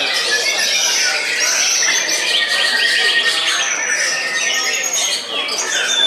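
Dense chorus of many caged songbirds, white-rumped shamas among them, singing at once: loud overlapping whistles and fast trills.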